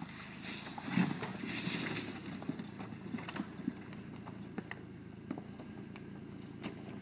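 Jeep Cherokee crawling slowly over loose creek-bed rock: tyres crunching and stones clacking and knocking under the wheels, with a louder knock about a second in, over the low sound of the engine.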